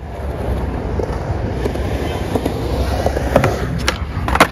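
Skateboard wheels rolling over concrete with a steady rumble, then a few sharp clacks near the end as the board pops and lands, the last clack the loudest.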